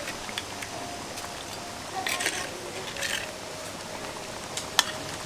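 Prawn curry in coconut milk simmering in a pan: a soft steady bubbling hiss, with a few sharp light clicks of a utensil or prawns against the pan.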